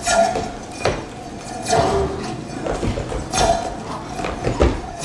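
Rhythmic knocking and clinking with a short ringing note, the same pattern repeating about every second and a half.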